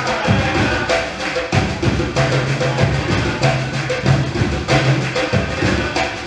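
A drum ensemble playing a rhythm together. Deep bass drum tones ring and recur about once a second under a dense, steady stream of sharp drum strokes and wood-block-like clicks.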